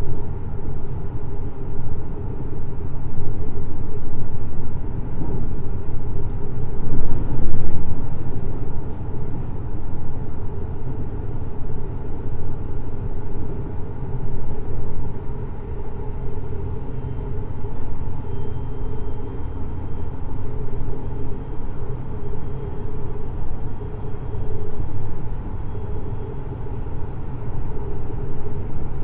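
Running sound of a JR Hokkaido 733 series electric multiple unit under way: a steady rumble of wheels and running gear on the track, louder for a moment about seven or eight seconds in, with a faint high whine in the second half.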